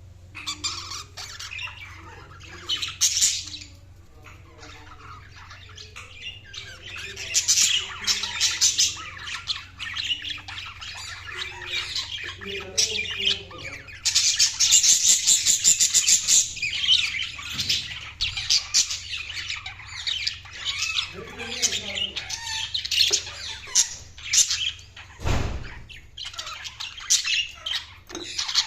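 Budgerigars chirping and chattering in quick, irregular calls, with a dense, loud burst of squawky chatter about halfway through. A single dull thud about 25 seconds in.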